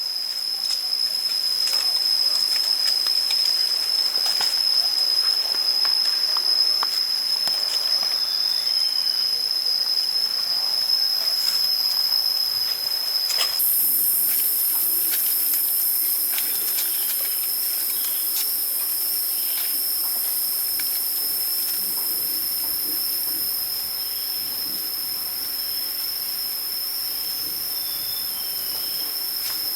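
A steady high-pitched whine over a hiss that jumps louder about halfway through, with faint short chirps here and there.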